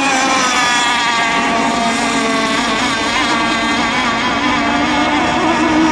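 Several radio-controlled racing boats' engines running at speed together: a loud, high buzzing whine made of several pitches that slide slowly up and down.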